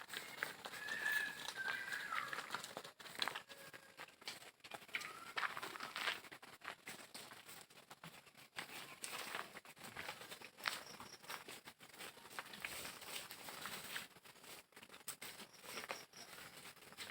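Birds chirping a few short calls in the first seconds, over scattered clicks and rustling.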